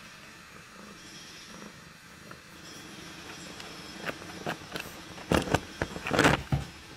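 Tuxedo cat purring steadily, then rubbing and bumping its face against the camera: a string of sharp scuffs and knocks from about halfway through, loudest near the end.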